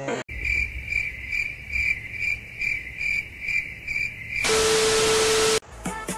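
Cricket-chirping sound effect: a steady high chirp repeating about two and a half times a second. About four and a half seconds in it is cut off by a burst of loud static with a low steady tone lasting about a second, and music starts near the end.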